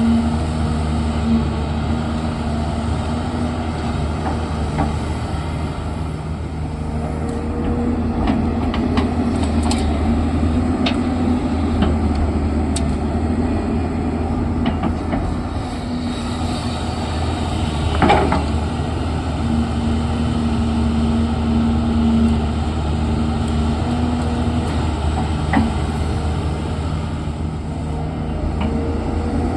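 Diesel engine of an earthmoving machine (backhoe loader or excavator) running steadily under work, with a higher tone that comes and goes and scattered light clanks. One louder knock comes about 18 seconds in.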